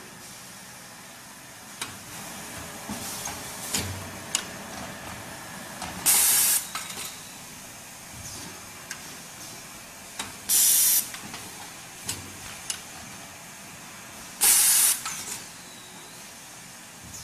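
Tissue paper converting machine running with a steady hum and scattered mechanical clicks, broken three times by a short, loud hiss of compressed air, about four seconds apart.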